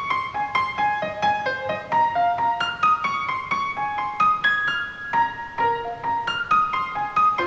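Background music: a quick melody of struck piano notes, several a second.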